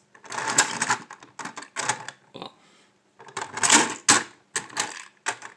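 Plastic Trackmaster toy coal truck and track pieces clicking and rattling as they are handled and pressed together, in about four quick bursts of clatter.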